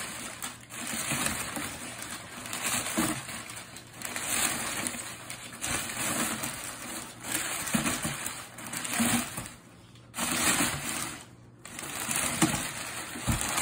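Crumpled brown packing paper rustling and crinkling as it is pulled in long lengths out of a cardboard box, in irregular swells with two brief pauses near the end.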